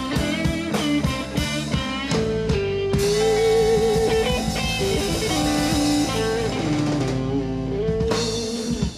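Live blues-rock band of guitars and bass playing the last bars of a song, a guitar line with bent, wavering notes over sustained chords, then the music stops sharply near the end.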